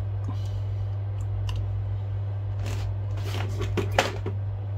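Small clicks, taps and rustles of hands handling an opened iPad's frame and its separated glass digitiser, with the sharpest click about four seconds in, over a steady low hum.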